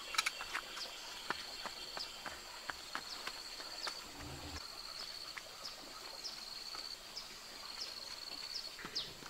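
Insects trilling steadily at a high pitch in long pulsing stretches, with scattered short sharp clicks and quick falling chirps.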